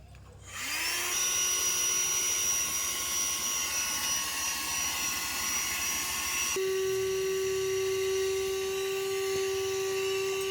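A small electric motor spins up with a quick rising whine about half a second in, then runs steadily with a whirring hiss. About two-thirds of the way through, the sound changes abruptly to a stronger, steady humming tone.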